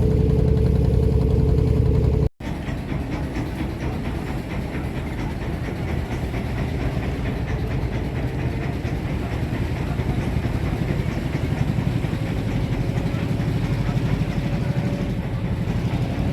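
Klotok motorboat engine running steadily with a constant pitch. About two seconds in, the sound cuts out for an instant and returns as a busier, rattling engine clatter.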